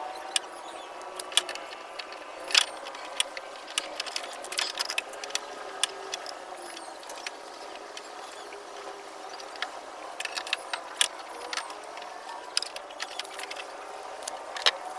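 Irregular light metallic clicks and taps as the back-door lock of a Suzuki Scrum is worked on by hand, over a steady hum.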